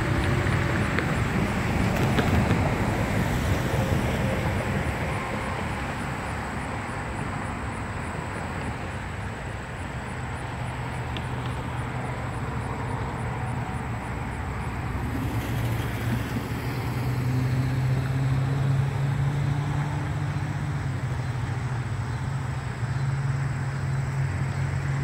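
Rear cars of a freight train rolling away over the rails, the rumble fading over several seconds. Then a steady low mechanical hum with road traffic, growing louder past the middle.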